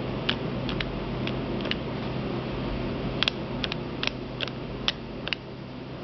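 Small sharp plastic clicks from a luggage combination lock being worked by hand, its release buttons and dials snapping as they are pressed and moved: a few scattered clicks, then a quicker run of them in the second half.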